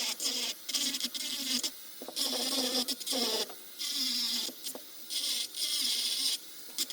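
Dremel 4000 rotary tool grinding along the edge of a wooden square timber to chamfer it. It runs in about five short passes, each roughly a second long, and its buzz starts and stops with each pass.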